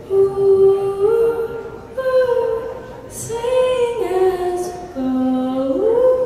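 Woman singing long, held notes that slide up and down between pitches, in four phrases, with little instrumental backing under the voice.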